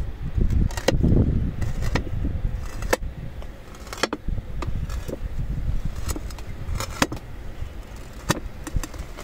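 Thin slabs of white Makrana (Albeta) marble clacking against each other as they are tipped back one by one through a stacked row: a series of sharp, irregular stone-on-stone clicks and knocks, about one a second, over a low rumble.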